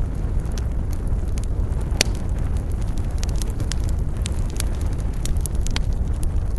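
Wood fire in a fireplace crackling, with irregular sharp pops over a steady low rumble, and one louder pop about two seconds in.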